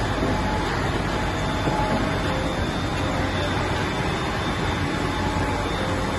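Favretto MC-130 surface grinder running: a steady mechanical whir with a low, even hum.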